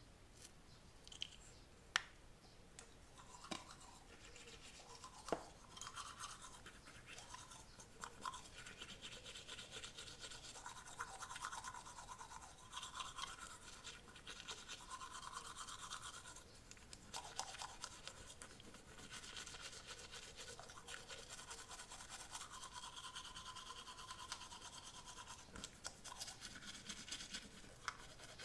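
Teeth being brushed with a toothbrush: continuous rapid scrubbing strokes, with a few sharp clicks in the first several seconds.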